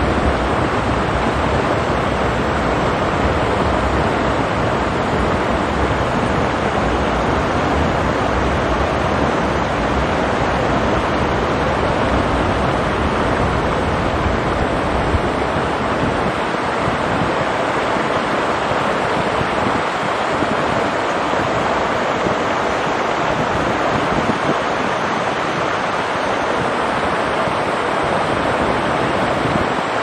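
Steady rushing of a rocky mountain stream running over stones, with a low wind rumble on the microphone that eases off about halfway through.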